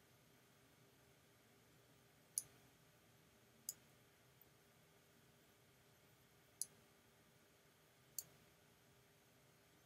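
Four short, sharp computer-mouse clicks, spaced one to three seconds apart, over near-silent room tone: the clicks of laying down spot-removal brush strokes while retouching a photo.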